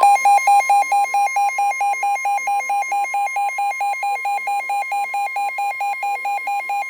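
NOAA Weather Radio's steady 1050 Hz warning alarm tone, with a second, louder alarm tone pulsing on top of it and switching between two pitches about four times a second, likely a weather radio receiver's own alert. The tones signal that an emergency warning is about to be broadcast.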